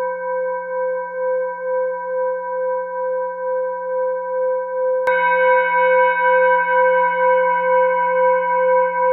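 Background music of a singing bowl: a ringing tone with a slow pulsing wobble, struck again about five seconds in, which brings a fresh, brighter ring with more overtones.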